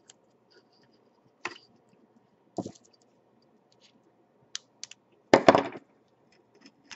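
Hand tools and wires being handled on a workbench: a few separate sharp clicks from pliers and small parts, then a louder quick run of clicks and scraping near the end.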